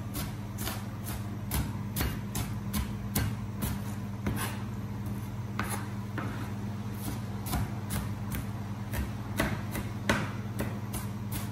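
Chef's knife chopping onion on a plastic cutting board: repeated knocks of the blade on the board, about two to three a second, irregular. A steady low hum runs underneath.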